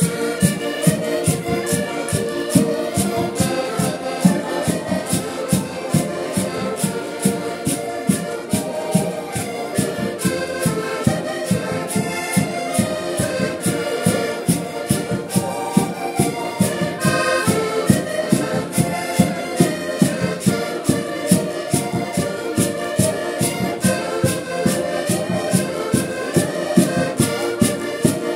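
Several button accordions playing a lively traditional Portuguese folk tune together, with percussion keeping a steady beat of about three strokes a second.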